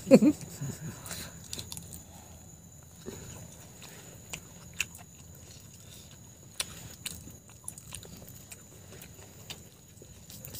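A person eating grilled shrimp: scattered small clicks and cracks as the shell is peeled and bitten, with quiet chewing. There is a louder mouth sound right at the start.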